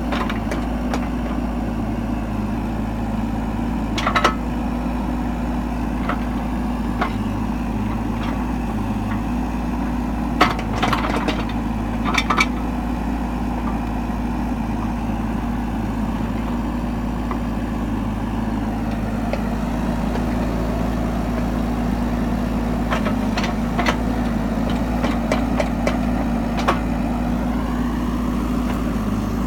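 Mini excavator engine running steadily while digging a test pit, with a few short knocks and clanks from the work, clustered about 4 s, 10–12 s, and 23–27 s in.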